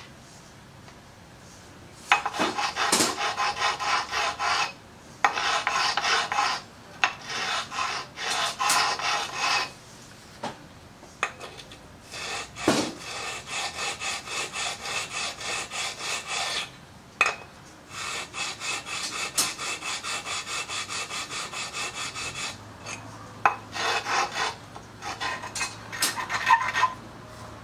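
Hand file rasping across the steel transmission mount of a rigid motorcycle frame, with repeated push strokes about three a second in several runs broken by short pauses.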